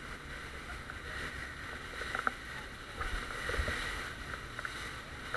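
Towed inflatable banana boat skimming over choppy sea: a steady rush of wind and water spray, with a few short knocks about two and three and a half seconds in.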